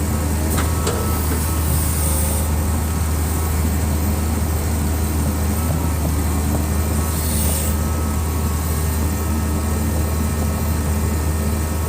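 Excavator's diesel engine running steadily with a deep, unbroken drone. A couple of brief high hisses come through about two and seven seconds in.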